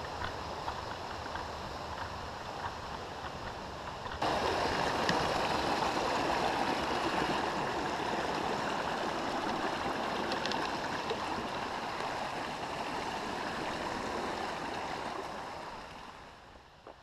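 Rocky mountain stream rushing over stones. The water comes in suddenly louder about four seconds in, holds steady, then fades out near the end.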